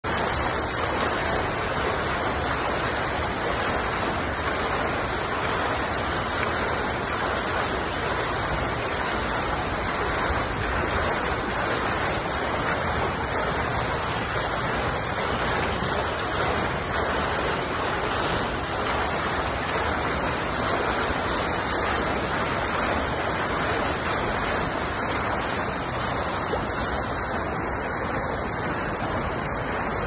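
Water cascading from the bowls of a tiered fountain and splashing into its basin: a steady, even rush of falling water.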